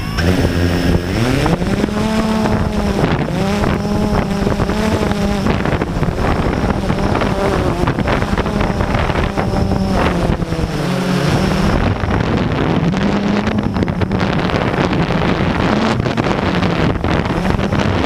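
Blade 350 QX quadcopter's motors and propellers droning, their pitch rising and falling over and over in high wind, with heavy wind noise buffeting the microphone.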